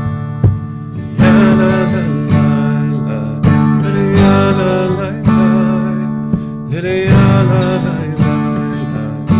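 A man singing a song while strumming an acoustic guitar; the voice comes in about a second in over the steady strummed chords.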